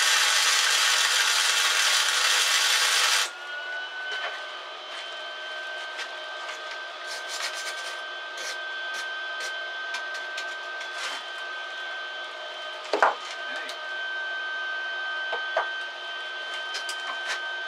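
Electric welding arc crackling and hissing loudly for about three seconds as a bead is laid on a steel knife tang, then cutting off abruptly. Afterwards the hot weld cools with scattered small ticks and one louder click, over a steady high whine.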